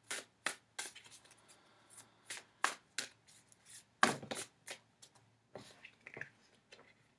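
A tarot deck being hand-shuffled: a run of short, sharp card slaps and flicks at an irregular pace, about two or three a second, with the loudest slap about four seconds in.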